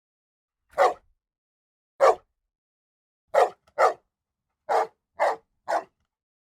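A dog barking in short single barks, seven in all, spaced about a second apart at first and coming closer together in the last two seconds.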